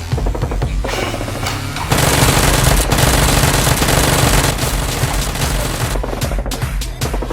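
Rapid automatic gunfire sound effects over background action music, the firing densest and loudest in the middle.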